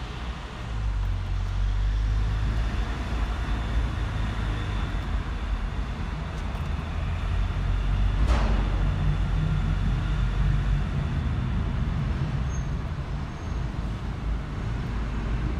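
Car engine and tyre noise heard from inside the cabin as the car climbs a parking-garage ramp under load: a steady low rumble. There is one brief sharp noise about eight seconds in.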